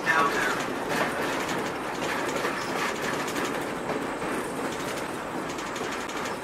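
Open-sided passenger car of a train rolling along the track: a steady rumble of wheels on rail, with a few clicks as the wheels cross rail joints.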